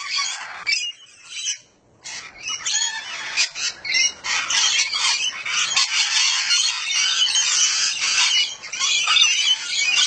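Parrots squawking and chattering, many shrill calls overlapping, with a short lull about a second in before the calls pick up again.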